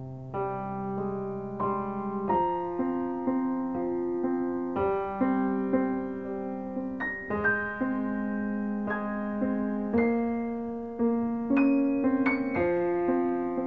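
Background piano music: a slow, gentle keyboard piece, with sustained notes and chords struck about once a second.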